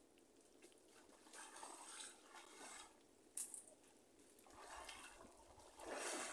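Faint wet rustling and dripping from a mesh crab net trap as it is handled and held up, in a few short bursts, the loudest near the end, with one sharp tick about halfway through.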